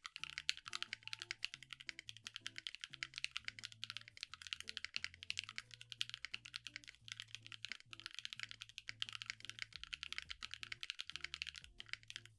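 Fast, continuous typing on a mechanical keyboard with Zuoce Bubblegum linear switches, keystrokes clattering in a dense stream with a few brief pauses, over soft background music.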